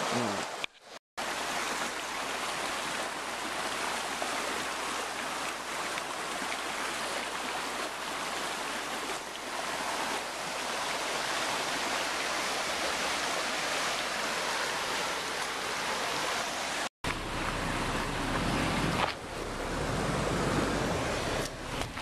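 Shallow mountain stream running over rocks: a steady, even rush of water, cut off for an instant twice, about a second in and again about three quarters of the way through.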